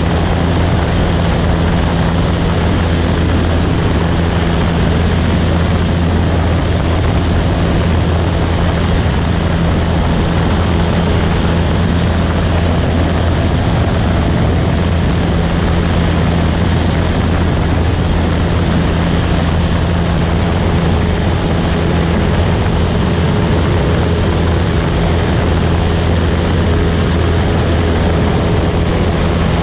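Piper Tri-Pacer light aircraft's engine and propeller running steadily in flight: a loud, constant low hum with a rush of air noise over it.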